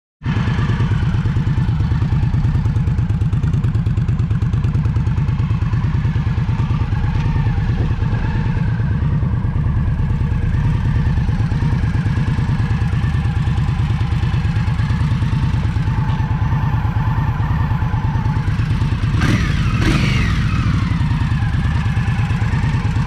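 Liquid-cooled 1133 cc V-twin of a 2019 Indian Scout Bobber idling steadily, with an even, pulsing low rumble. About 19 seconds in there is a brief sharper sound with a falling tone over the idle.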